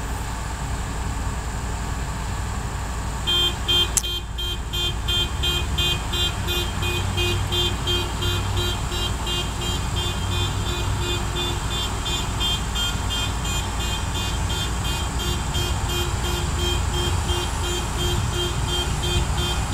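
Heavy diesel engines running in a steady low rumble. From about three seconds in, a reversing alarm beeps rapidly and evenly, the sign of a dump truck backing up into position to be loaded. A sharp knock sounds about four seconds in.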